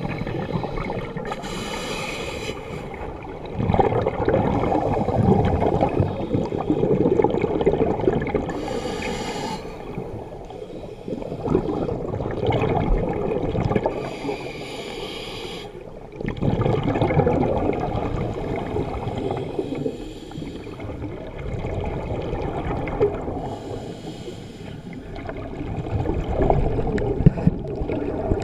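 Scuba diver breathing through a regulator, heard underwater: a short hiss of each inhalation, then a longer, louder gurgle of exhaled bubbles, repeating about four times.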